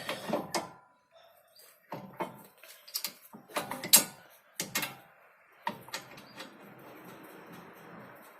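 Sharp clicks and knocks of brake pads and the caliper being fitted back onto a car's front brake, bunched between about two and five seconds in. A faint steady hiss follows near the end.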